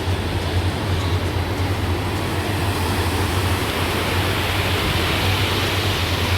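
Steady wind rumbling on the microphone, mixed with the even rush of sea surf.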